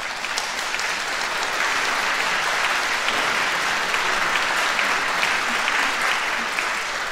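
Audience applauding in a hall, swelling over the first couple of seconds, holding steady, then starting to fade near the end.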